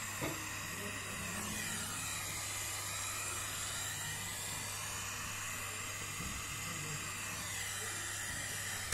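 Brazing torch flame hissing steadily during refrigerator pipe brazing, over a constant low hum.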